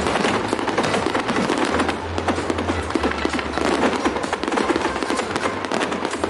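Rapid, overlapping clicking of many camera shutters firing in bursts, over background music with a steady bass line.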